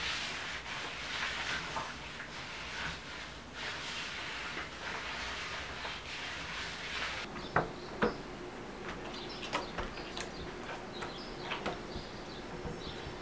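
Hands and a small tool rubbing and scraping across a sheet laid on a wooden workbench, a steady hissing swish. Partway through, that gives way to a string of sharp light knocks and clicks as a metal drum hoop is handled on a cloth-covered tabletop, over a faint steady hum.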